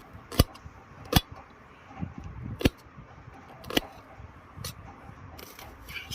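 A knife striking a cutting board in single sharp chops, about five of them spaced unevenly a second or so apart.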